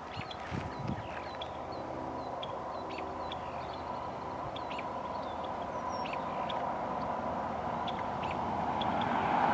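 Songbirds chirping in short, repeated calls over a steady low hum. A road vehicle approaches and grows louder near the end.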